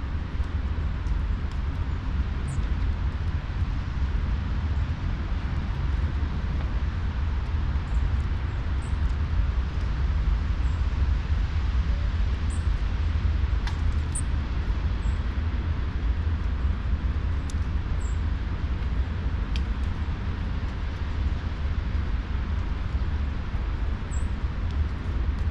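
Outdoor ambience: a steady low rumble, with a few faint, short, high-pitched bird chirps scattered through it.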